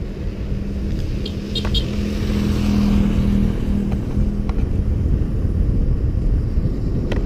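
A motor vehicle passing a moving bicycle, its engine hum swelling to a peak about three seconds in and then fading, over a steady rumble of wind and road noise on the bike-mounted camera's microphone.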